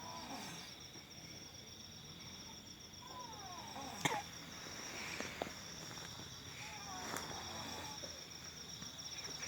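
A sleeping person snoring in a slow breathing rhythm, one snore roughly every three and a half seconds, over steady chirping of crickets. A sharp click about four seconds in.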